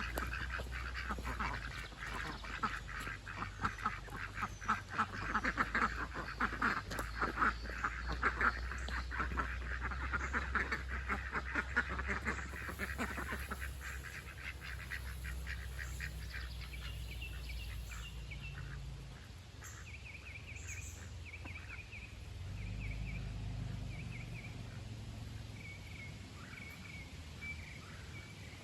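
A flock of domestic ducks quacking, a dense, rapid chorus of many overlapping calls that thins out about halfway through into scattered calls.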